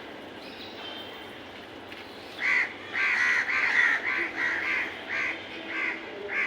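Crows cawing: a quick run of about ten short caws, starting about two and a half seconds in.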